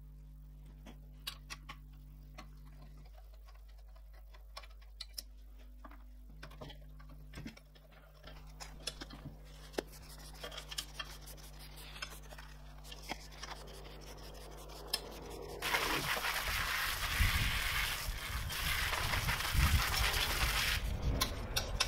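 Small clicks, scrapes and rubs of hand tools and metal parts being worked on a motorcycle subframe, over a steady low hum. About sixteen seconds in, the steady hiss of a water jet from a hose spray wand starts and becomes the loudest sound as the parts are washed.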